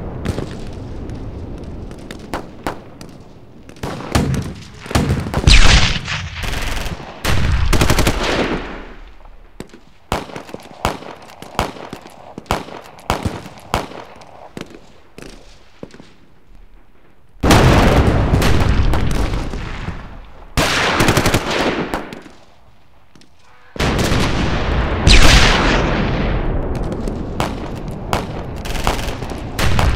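Battlefield gun-fight ambience: scattered single gunshots and rapid machine-gun bursts, broken by several long, loud stretches of heavy fire that ring out and die away, with a short lull about two-thirds of the way through.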